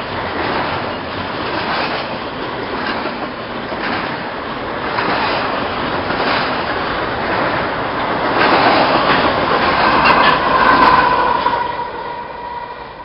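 Double-stack container freight train rolling past close by: a steady rumble of steel wheels with repeated clacks over rail joints. It grows loudest shortly before the end, when a locomotive at the tail of the train passes, with a high drawn-out whine, then fades.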